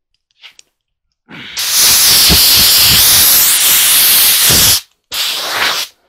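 Compressed-air hose nozzle blowing dust off clothing: one long blast of rushing air lasting about three and a half seconds, then a short blast of under a second.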